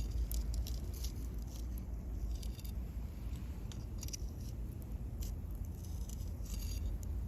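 Wood fire crackling, with sharp irregular snaps and pops over a steady low rumble.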